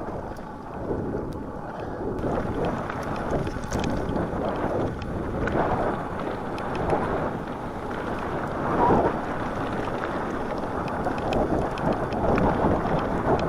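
Wind buffeting the microphone of a mountain bike riding downhill on a snowy trail, with scattered faint clicks and rattles from the bike.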